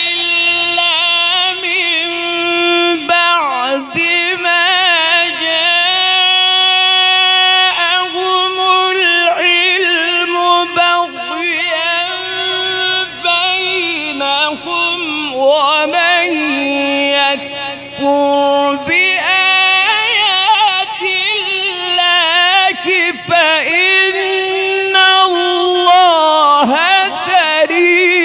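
A male qari reciting the Quran in the melodic tajweed style, holding long drawn-out notes with wavering ornaments and a few brief pauses for breath.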